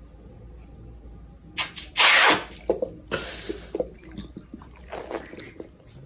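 A man swigging beer from an upturned glass bottle: liquid sloshing and gulping, with a sudden loud rush about two seconds in, a hissing stretch soon after, and scattered small clicks.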